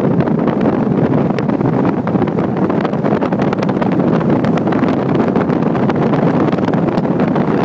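Strong, steady wind buffeting the microphone high up on an open tower, a dense, loud rushing noise.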